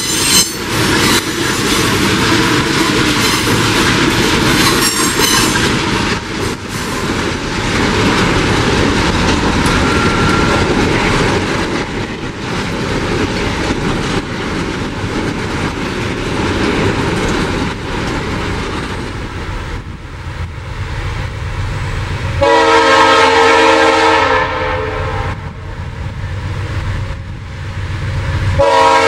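A freight train hauled by GE Dash-9 diesel locomotives passes at speed, the engines running and then its empty container wagons clattering over the rail joints. Later a locomotive's multi-tone air horn sounds a long blast about three-quarters of the way through, and a second blast starts near the end.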